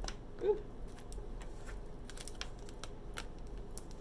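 A deck of tarot cards being shuffled by hand, giving a run of light, irregular clicks as the cards slap and slide together.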